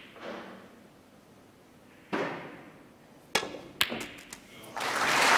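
Snooker shot on a full-size table: a dull knock about two seconds in, then a sharp click and a quick run of lighter clicks as the balls strike one another. Audience applause swells near the end for the pot.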